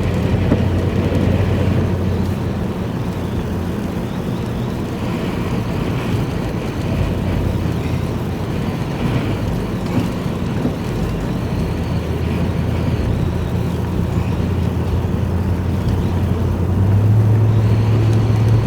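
Vehicle engine and road noise heard from inside the cab: a steady low hum that steps up in pitch and gets a little louder near the end.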